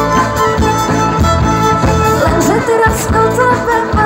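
Live folk-rock band playing with a fiddle lead over electric guitars, bass and drums with a steady beat; a woman's singing voice comes in about halfway.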